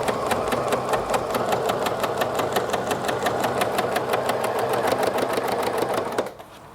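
Pfaff Select 4.2 mechanical sewing machine stitching steadily, a fast even run of needle strokes over the motor's hum, its IDT dual-feed walking foot engaged and sewing through layers of denim, cotton and stretch fabric. It stops about six seconds in.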